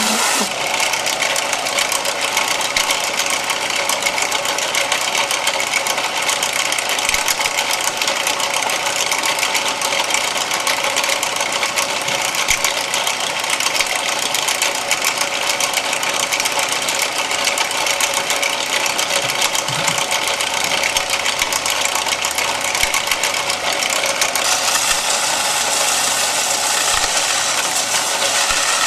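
Bench belt sander running steadily while a clear plastic navigation-light lens is held against the moving belt and its edge ground down to fit. The grinding hiss grows brighter near the end.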